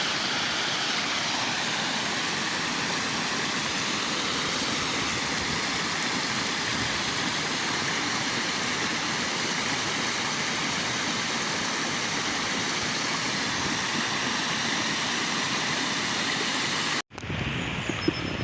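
Waterfall, water rushing in a steady, even hiss. Near the end it cuts off abruptly and a quieter outdoor background takes over.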